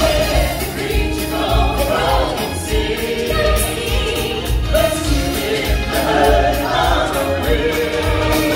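A choir of voices singing over a steady drumbeat: music from a live stage show.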